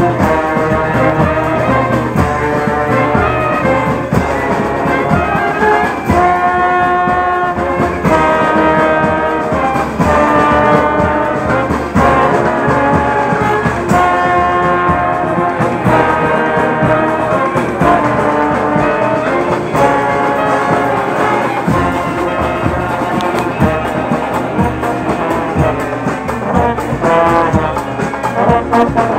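Brass band playing, with trombones and trumpets.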